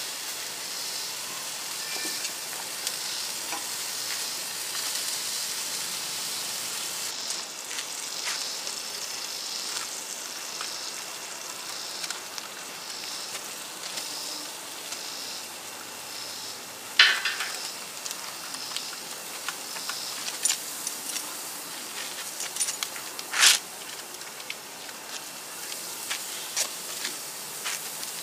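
Chicken wings and burger patties sizzling on a hot grill grate, a steady hiss throughout. There are a few sharp clacks from the grilling utensils against the grate, the two loudest in the second half.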